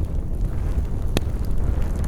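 Campfire burning with a steady low rumble and scattered crackles and pops of burning wood, one sharper crack about a second in.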